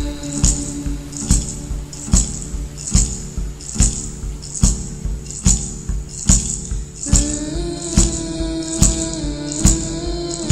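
Song with a slow, steady beat: a hit a little under once a second, with tambourine jingles between the hits over held notes. About seven seconds in, a sustained melody line comes in and slides gently in pitch.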